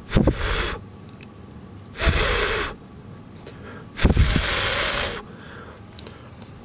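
A person blowing three long breaths onto two glowing catalytic hand warmer heads: hissy rushes of air, each starting with a puff hitting the microphone, at about two-second intervals. The blowing feeds air to the catalyst so the heads glow brighter.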